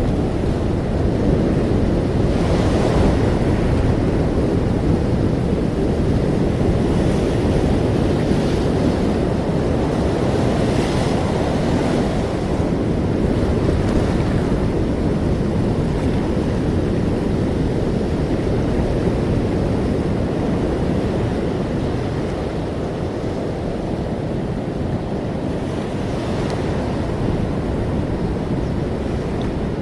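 Ocean surf rushing continuously with a deep rumble, with several brief swells of brighter hiss as waves break and wash up.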